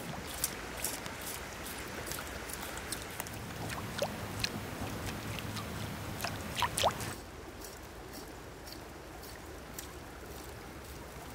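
Steady running-water sound with scattered sharp clicks and short pops, as a foam topwater fly is stripped across the surface in quick little pops. The water sound drops lower about seven seconds in.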